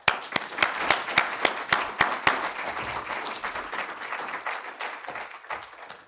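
Audience applauding, starting at once and tapering off over the last couple of seconds.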